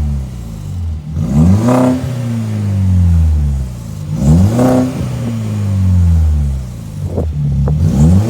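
Citroën DS5's 1.6 THP turbo four-cylinder, with a downpipe and straight-through exhaust, revved in quick blips about every three seconds, each rising sharply and sinking slowly back toward idle, with a shrill note. Near the end come a couple of short sharp pops as the revs drop.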